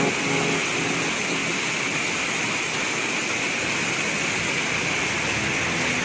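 Waterfall and whitewater rushing over rocks: a steady, even roar of water with no change.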